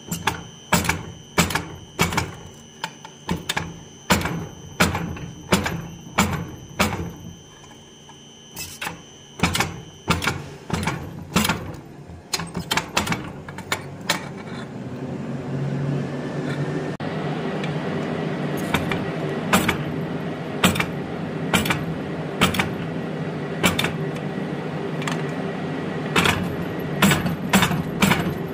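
Hand hammer striking steel on an anvil, about two ringing blows a second with a short pause near the middle, as scute lines are worked into a forged steel alligator. About halfway through, a steady rushing noise starts up and runs on under the blows.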